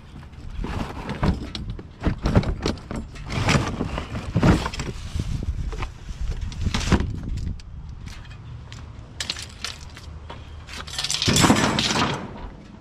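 Rummaging through a curbside trash cart: plastic bags rustling and hard items clattering and clinking in quick, irregular knocks. A longer, louder noisy burst comes near the end.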